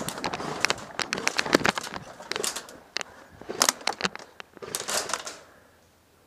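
Footsteps on grass and sandy ground with rustling gear and brush, in irregular crackling bursts that stop about five seconds in.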